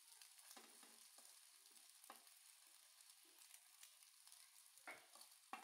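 Faint sizzle of beaten egg frying in oil in a pan, with a few light taps and scrapes of a plastic slotted spatula, the clearest two near the end.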